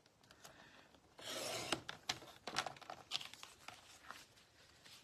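Paper trimmer's blade slid along its rail, cutting through a strip of cardstock in one stroke of under a second, followed by several light clicks and taps as the card and trimmer are handled.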